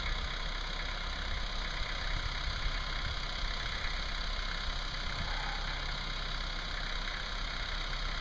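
An engine idling steadily with a low hum, with no knocks or crashes standing out.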